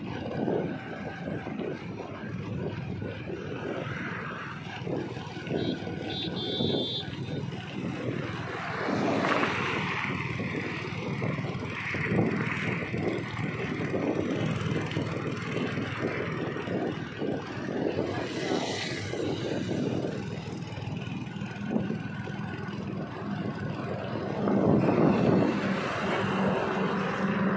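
Motorcycles running along a road, the engine hum mixed with steady road noise and wind buffeting the microphone. A short high-pitched tone sounds briefly about six seconds in.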